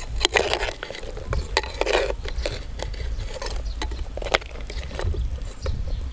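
Metal spoon stirring food in a clay cooking pot, scraping and clinking against the pot in a run of short irregular clicks and scrapes, busiest in the first two seconds. A steady low rumble sits underneath.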